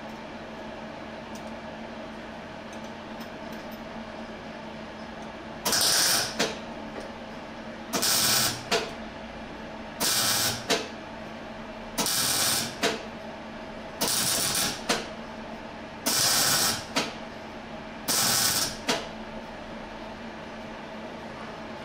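Seven short MIG welding tacks, each under a second of crackling arc, about two seconds apart and starting about six seconds in, over a steady low hum. A washer is being tack-welded onto the old steering head bearing race so that the race can be driven out.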